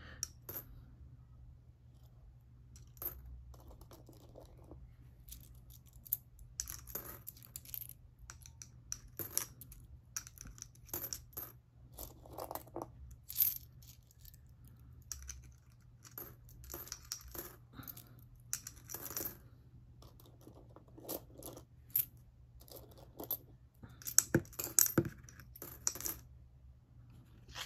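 Pennies dropped one at a time through the slot of a piggy bank already heavy with coins, each landing with a short clink on the coins inside. The clinks come irregularly, a few seconds apart, with a quicker, louder cluster near the end.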